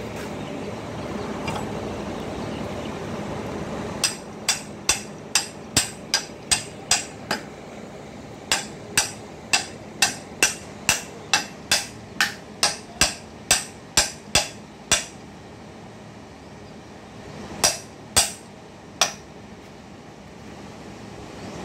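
Ball-peen hammer tapping the cast end cover of a 2 HP three-phase electric motor to seat it onto the frame during reassembly: sharp metallic taps, two to three a second, in two runs with a short pause between them, then three more taps near the end.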